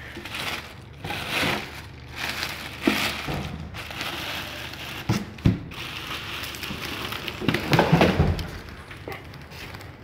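Clear plastic wrapping crinkling and rustling as a water heater is handled in its cardboard box, with a few knocks and bumps against the box, the loudest cluster near the end.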